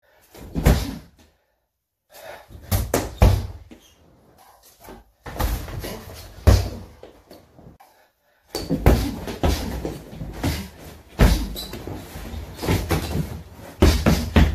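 Punches and strikes thudding on a freestanding heavy bag, in quick flurries of many hits with short silent gaps between them.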